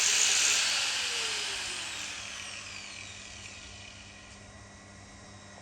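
Handheld power tool on the engine block, switched off and winding down: its hissing whine falls in pitch and fades over about four seconds.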